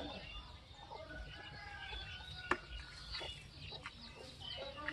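Chickens clucking, with many short scattered calls and a single sharp click about two and a half seconds in.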